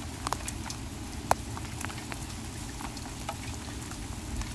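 Steady rain with scattered pops and crackles from chicken grilling over charcoal, and one sharp click a little over a second in.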